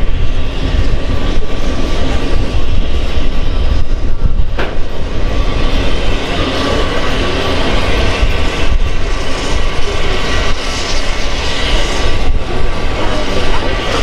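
Heritage passenger carriages running behind steam locomotive 6029, heard from a carriage: steady wheel-on-rail running noise with a deep rumble and a faint steady whine, and a single sharp knock about four and a half seconds in.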